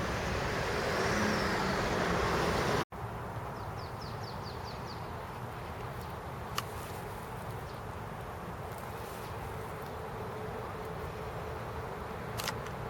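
Outdoor ambience with a steady hum of distant traffic. A louder rushing noise cuts off abruptly about three seconds in; after it comes a short quick run of high chirps and a few faint clicks.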